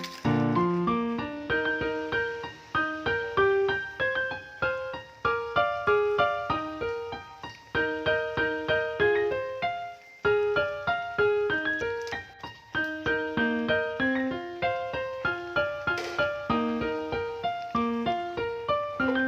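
Background piano music: a quick run of bright piano notes.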